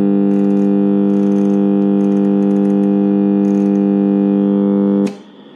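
Alarm buzzer of a Copal RD-150 flip clock radio, a loud, steady buzz on one pitch. It cuts off suddenly about five seconds in as snooze is pressed, leaving the radio playing faintly.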